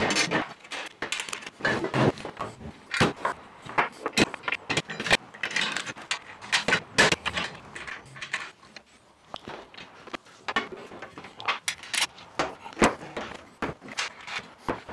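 Irregular clinks, knocks and scrapes of steel stand legs, rails and loose bolts handled on a wooden workbench as the drum sander's steel base is bolted together.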